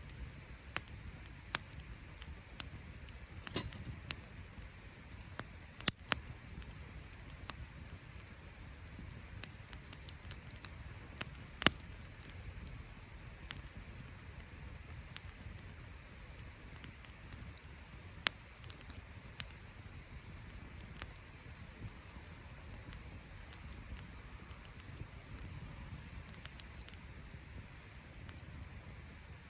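Wood campfire crackling, with irregular sharp pops scattered through, a few much louder than the rest.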